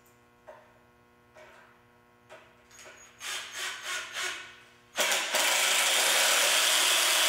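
Cordless impact driver toe-screwing a 3-inch wood screw at an angle into a 2x4 joint. A few faint clicks, then several short trigger bursts to start the screw, and from about five seconds in a loud, steady run of the driver hammering it home.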